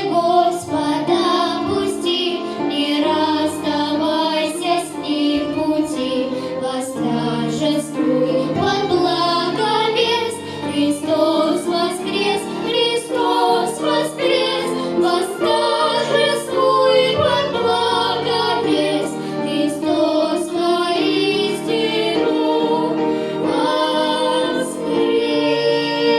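Two girls singing a Russian pop-style song together over an instrumental backing.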